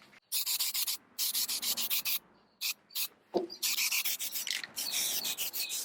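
Aerosol spray paint can spraying in several hissing bursts, with a single knock about three and a half seconds in.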